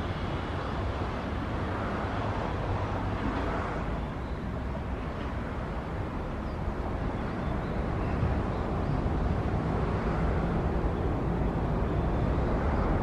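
Diesel engine of a Tenryu Hamanako Railway TH2100 railcar running as the car pulls away down the line: a steady low rumble, growing somewhat louder about two thirds of the way through.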